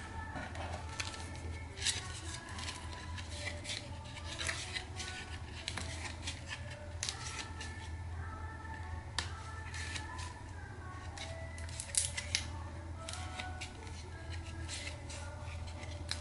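Stiff painted watercolor-paper pages of a handmade mini book being handled and turned, with repeated crinkles and sharp paper snaps.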